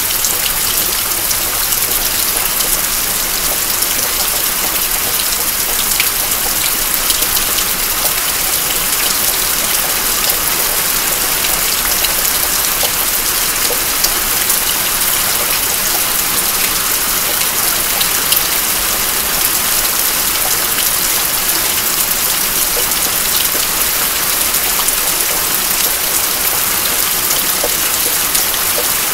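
Steady rain falling: an even hiss with scattered sharper drip ticks.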